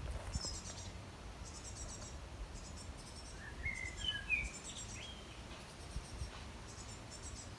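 Outdoor garden ambience: high-pitched chirping trills in short repeated bursts throughout, with a few short whistled bird notes in the middle, over a low rumble.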